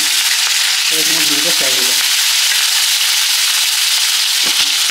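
Pieces of catla (bhakua) fish, rubbed with salt and turmeric, sizzling loudly and steadily in hot oil in a kadai as they fry. A couple of sharp knocks come near the end.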